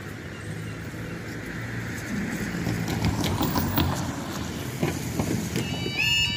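A car drives over the railway level crossing, with a few footsteps of people crossing. About five and a half seconds in, the crossing's warning alarm starts: a repeating pitched tone about twice a second, sounding as the amber road light comes on.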